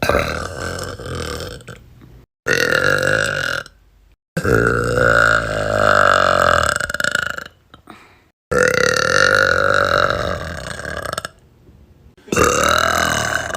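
About five drawn-out burps from girls, one after another with abrupt cuts between them; the longest, a few seconds in, lasts about three seconds.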